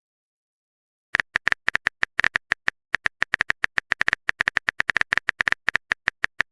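Rapid typing clicks of a phone-keyboard sound effect, short sharp taps coming several a second in an uneven run, starting about a second in.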